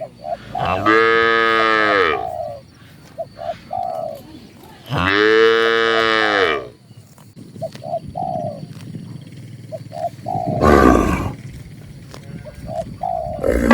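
Cattle mooing: two long calls that rise and fall in pitch, a few seconds apart. Between them birds give short repeated calls, and a short, rough, noisy sound comes about eleven seconds in.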